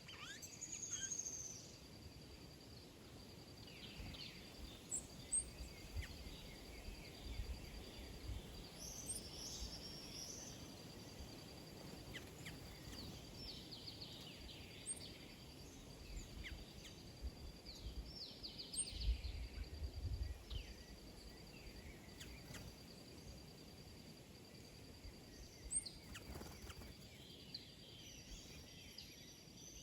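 Small birds chirping and calling on and off, in short quick notes, over a faint steady high-pitched tone, with a couple of low rumbles.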